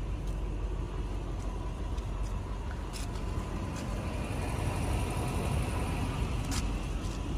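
A 2001 Toyota Land Cruiser's engine idling with a steady low rumble, growing a little louder toward the end.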